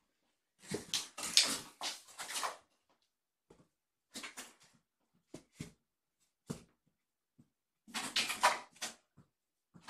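Short bursts of rustling and scrabbling from kittens pawing and pouncing at play, in three main flurries with a few single taps between them.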